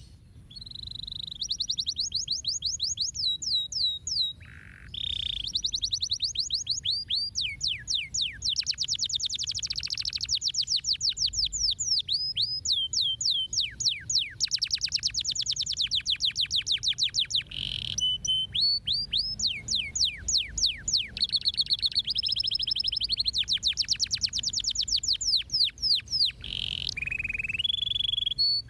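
Domestic canary singing a long, fast song made of rapid trills of repeated high, downward-sweeping notes, one trill switching straight into the next, with short breaks about four seconds in and around eighteen seconds.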